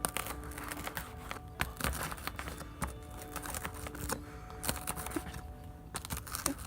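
Quiet background music of soft held notes, with scattered light clicks and crinkling handling noises over it.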